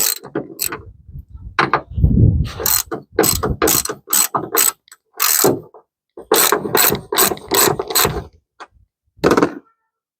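Ratchet socket wrench clicking in short bursts of rapid clicks with brief pauses, undoing the bonnet bolts. A duller knock about two seconds in.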